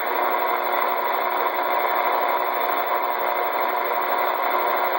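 Steady static hiss from a two-way radio's speaker with the channel open and no one talking. It sounds thin and narrow, as radio audio does, and faint steady tones run through the hiss.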